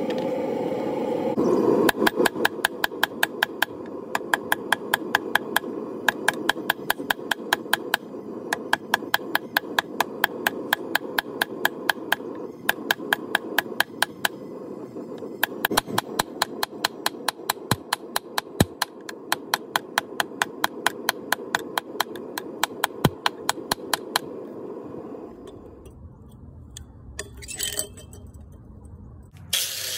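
Hand hammer forging a hot Damascus billet on a railroad-track anvil: a rapid, even rhythm of about three blows a second with a few short pauses, over the steady rush of a propane forge burner. The hammering stops a few seconds before the end.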